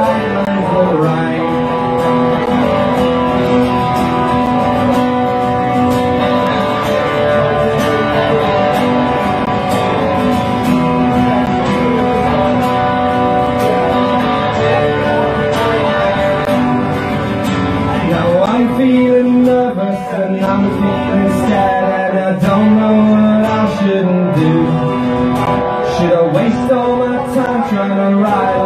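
Acoustic guitar strummed and picked in a live song performance.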